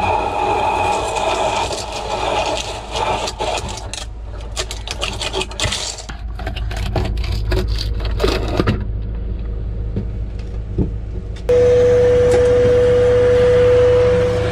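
Electric drill with a large hole saw cutting through a wooden cabinet wall: the motor runs steadily, then the saw teeth scrape and rattle irregularly as they bite through the wood. About eleven seconds in it cuts suddenly to a louder, steady, single-pitched hum.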